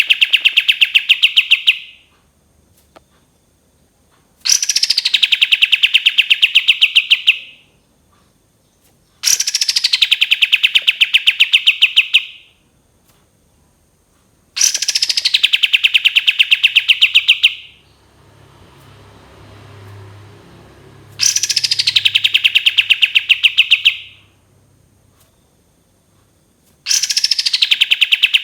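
Kapas tembak bird singing a repeated phrase. Each phrase opens with a quick falling whistle and runs into a long, rapid, even trill of about three seconds. The phrase comes back every five to six seconds.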